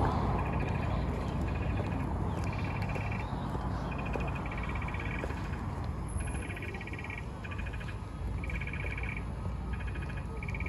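Animal calls in a chorus of short, finely pulsed trills repeating every second or so, over a steady low rumble of city traffic.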